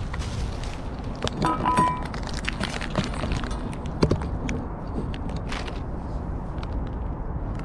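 Shallow stainless steel dish being handled and set down on leaf-covered ground. There are light clinks and a brief metallic ring about a second and a half in, then a sharper knock about four seconds in, all over a steady low outdoor rumble.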